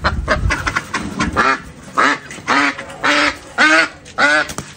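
Domestic ducks quacking over and over, short nasal calls coming about twice a second.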